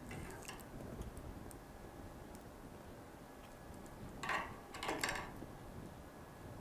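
Hands handling paper craft pieces and a plastic glue bottle on a tabletop. A few faint clicks come first, then two short rustling scrapes about four and five seconds in.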